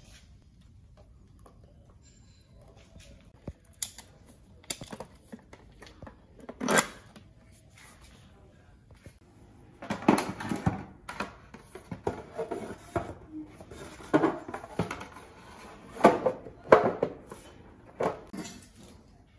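Metal motorcycle parts clinking and knocking as they are handled and fitted, with the front fender being worked into place over the wheel. A few scattered clicks and one sharper knock give way in the second half to denser bursts of clattering.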